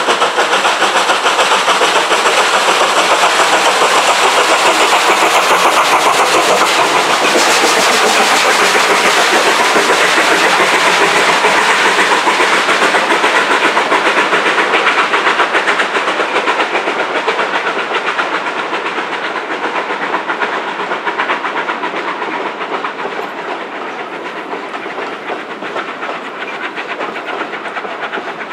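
Steam locomotive working a passenger train past: steady exhaust chuffing and hiss with the rumble and clickety-clack of coaches over the rails, fading gradually over the second half as the train moves away.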